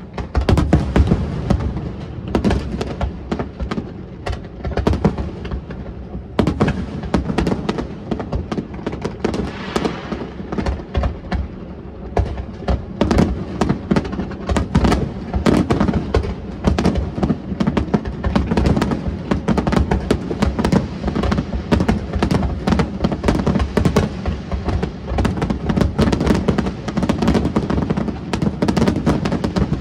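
Fireworks going off in a dense, continuous barrage of bangs and crackles, with short lulls about six and twelve seconds in.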